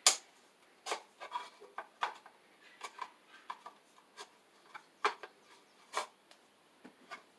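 An electrical outlet box and its cable being handled and fitted together: a string of irregular clicks and knocks with some rubbing, the sharpest right at the start.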